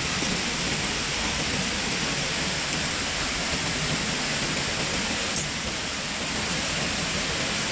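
Waterfall's steady rushing noise of falling water.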